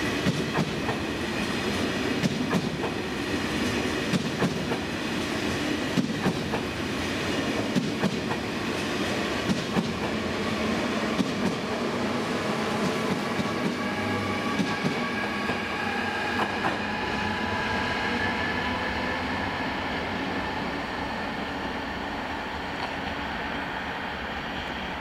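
High-speed electric train running through the station, its wheels clicking over rail joints with a steady rumble. A steady whine comes in about halfway.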